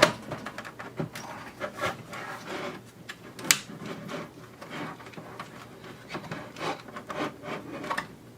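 Parts of a PS4 console being pried and worked at to free a stuck component: irregular scraping and rubbing with scattered clicks, a sharper click about three and a half seconds in.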